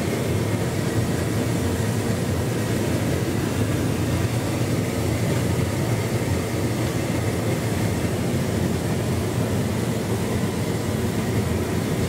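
Hotpoint Ultima S-Line tumble dryer with a full load running on a distribution cycle: the steady low hum and rumble of the motor and turning drum.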